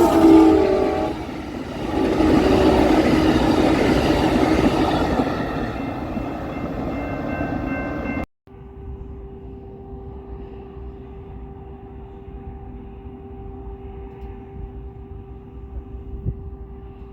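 A train's multi-note horn chord ends about a second in, followed by the loud rushing noise of a passing train. After an abrupt cut about halfway through, a much quieter steady hum with one held tone runs on.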